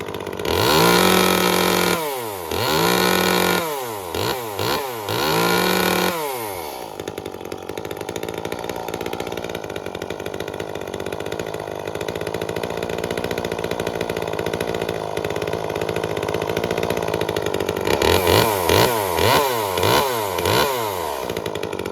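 Echo CS-355 two-stroke chainsaw engine revved hard three times with a few quick throttle blips between, then idling steadily for about ten seconds, then blipped several times more before the engine cuts off at the very end. The saw is being test-run after a carburettor cleaning while its mixture is dialed in.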